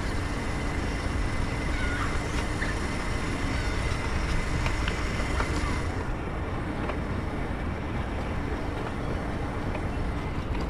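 Scooter running along at riding speed: a steady motor hum under continuous rumble and wind on the microphone, with a few light clicks.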